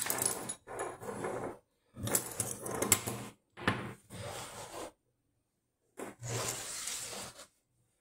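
Metal lock tools and plastic pin trays being handled and set down on a wooden tabletop: sliding and rubbing with sharp metallic clinks, in several bursts of a second or so with short pauses between.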